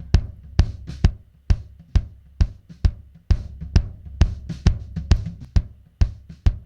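Playback of a recorded drum kit through the kick-drum channel, compressed with a fast attack and fast release: a steady beat of bass-drum hits about two a second, with the snare leaking in between.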